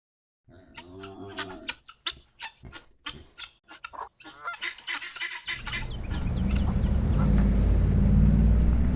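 A flock of geese honking, many short calls one after another, for about five seconds. Then the ambience switches abruptly to a louder, steady low rumble with a few faint bird chirps over it.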